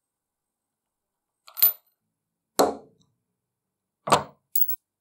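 Small machined metal parts being handled and set against each other: a sharp metallic click about one and a half seconds in, then two duller knocks about a second and a half apart, and two light clicks near the end.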